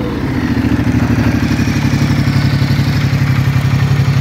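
Ducati Multistrada 1260 Enduro's 1262 cc L-twin engine idling steadily in neutral, with an even, lumpy pulse to its beat.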